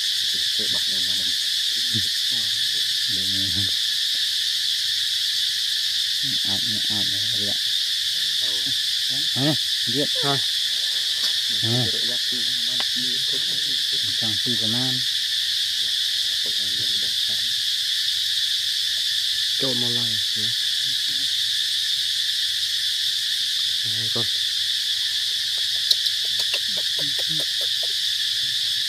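Steady, high-pitched drone of insects in the trees, running unbroken and louder than anything else. Beneath it, people's voices talking now and then, and a single sharp click near the end.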